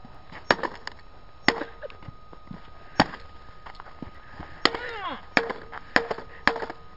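Small digital atomic clock lying on snow being stomped on with a boot and, near the end, hit with a hammer: about seven sharp, separate blows at uneven intervals.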